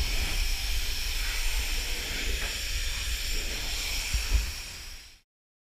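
Pressure washer jet spraying water onto a car's bonnet: a steady hiss of spray over a low rumble, fading and then cutting off about five seconds in.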